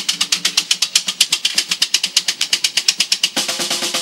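Snare drum played by a street drummer in fast, even strokes, about eight a second. Steady pitched notes come in about three and a half seconds in.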